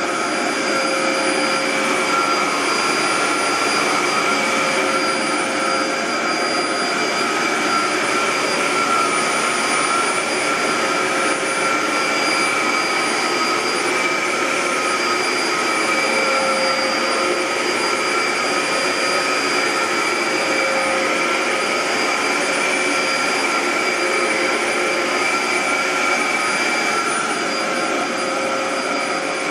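Dyson DC07 bagless upright vacuum cleaner running steadily: a rush of air with a steady whine over it.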